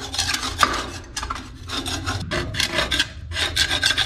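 Stucco being scraped off a wall with a hand tool: quick, rough rasping strokes, several a second, with short pauses between runs.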